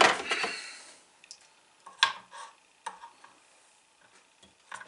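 Handling clatter and a few separate light clicks and knocks as metal scope-ring alignment bars are lifted from a hard plastic kit case and set into rifle scope rings. The loudest knock comes about two seconds in, and two more come near the end.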